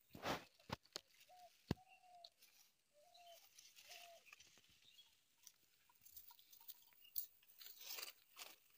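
Quiet handling noises from baiting a fishing hook by hand and lifting a bamboo rod: a few sharp clicks in the first two seconds and soft rustling from about six seconds in. Four short, faint pitched calls come in between.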